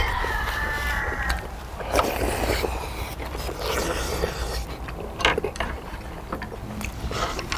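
People eating hot beef short-rib soup: a drawn-out slurp of broth in the first second or so, then chewing and scattered clicks of spoons and chopsticks against stone bowls.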